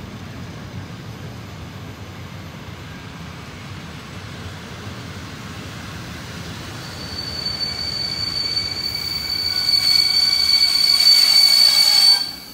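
Passenger train coaches rolling slowly along the platform with a low rumble. About seven seconds in, a high steady squeal from the wheels sets in and grows louder, then stops abruptly near the end.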